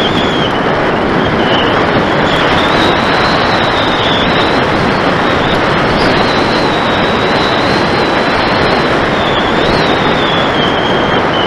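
Air rushing over the underwing camera of an RC electric glider in fast flight, with a high whine from its 1150kv brushless motor and 10x7 propeller that wavers up and down in pitch.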